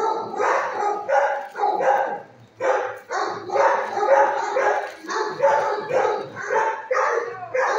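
Shelter dogs barking over and over, about two barks a second without a break.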